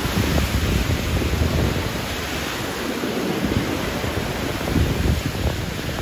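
Small waves washing onto a sandy beach, with wind buffeting the microphone in a low uneven rumble that eases briefly about halfway through.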